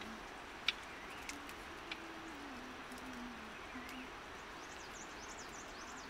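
Birds chirping over a steady outdoor hiss, with a few sharp snaps of twigs as timur shrub branches are handled and picked, the loudest under a second in.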